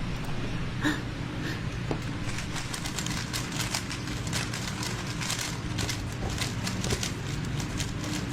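Plastic speedcube being turned, a fast irregular run of small clicks over a steady low room hum.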